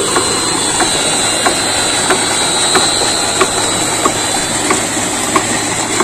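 Solar-powered electric motor belt-driving a water pump, running steadily: a hiss with a thin, high steady whine over it, and a regular tick about every two-thirds of a second.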